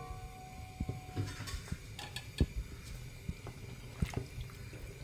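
Spoon knocking and scraping against an earthenware cooking pot as raw squid pieces are stirred into thick masala: a few scattered light knocks.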